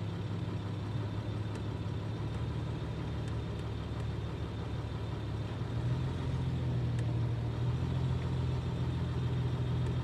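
Citroën C6's 2.7 V6 HDi diesel engine (UHZ) idling, with the revs raised slightly about six seconds in. The engine is still somewhat cold. It has a subtle tapping the owner hears on light throttle and suspects comes from a slightly sticking injector.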